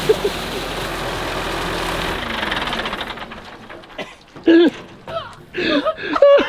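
A powerful hose jet blasts water into the pool with loud splashing, over a diesel engine running the pump. About three seconds in the spray stops and a man laughs hard in several bursts.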